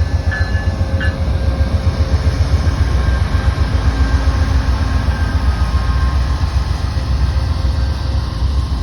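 Amtrak GE P42DC diesel locomotive and its passenger train running close by: a loud, steady low rumble, with faint steady high tones over it at times.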